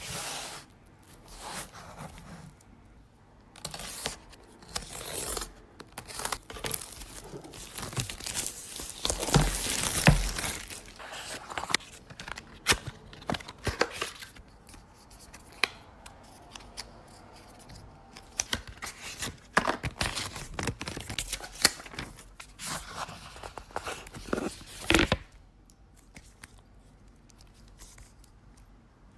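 Handling noise from unboxing a smartphone: packaging tearing and crinkling, cardboard box parts rubbing and sliding, and sharp clicks. The densest tearing is around ten seconds in, and a loud click comes near the end.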